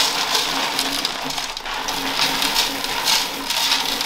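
Aquarium gravel pouring into a tank, a continuous rattling hiss of small stones that swells and eases about once or twice a second.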